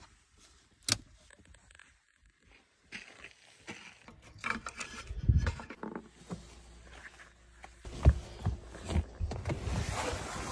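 Handling noise of hands working switches and fittings: a sharp click about a second in, then scattered knocks and rustling, with a few heavier thumps in the second half.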